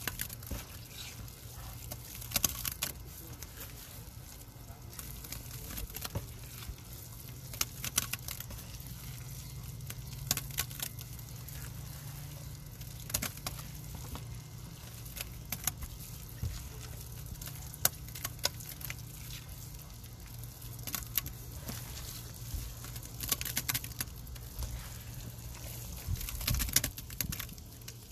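A hand squishing and kneading thick wet powder paste in a tub: irregular wet squelches and crackles every second or so, over a steady low hum.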